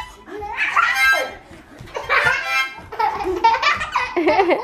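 Young children laughing and squealing, with blown notes from small toy harmonicas mixed in.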